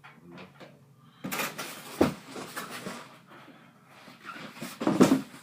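Handling noise from a PC case and its parts: rustling and clattering, with a sharp knock about two seconds in and a louder one near the end.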